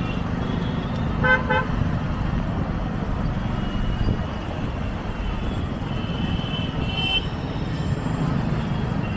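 Road traffic with a steady low engine rumble. A vehicle horn gives two short beeps about a second in, and fainter high-pitched horn tones sound later.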